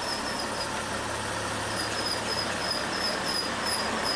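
Class 670 double-deck diesel railcar rolling slowly past close by: a steady low engine hum under even running noise, with a high chirping squeak repeating a few times a second.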